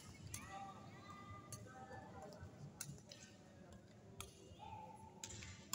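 Badminton rackets striking shuttlecocks in a multi-shuttle feeding drill: about six sharp hits, roughly one every second or so, with short high squeaks between them.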